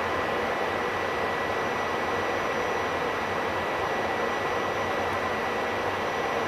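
Electric regional train of double-deck coaches pulling out of the station: a steady, even rushing noise with a thin high whistle held on one pitch.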